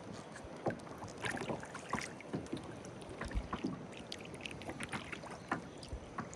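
Kayak paddle strokes dipping and splashing in calm swamp water, with irregular drips and small splashes off the blades, over a steady hiss of breeze.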